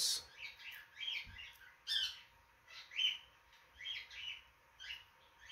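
A small bird chirping faintly in short, repeated calls, about one or two a second.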